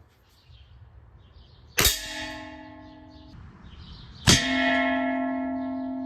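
Two shots from a .22 calibre air rifle, about two and a half seconds apart, each pellet striking metal that rings with a clear bell-like tone of several pitches that slowly fades. The second strike is louder and its ringing is still sounding at the end.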